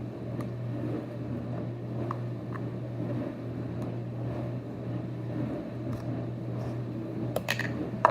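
A steady low hum with a few faint clicks of handling, then a quick cluster of clicks and a sharp snap near the end, typical of a plastic Play-Doh tub being handled and opened.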